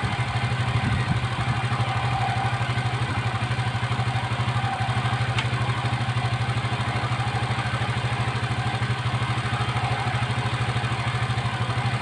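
Motorcycle engine idling steadily with an even, unchanging beat.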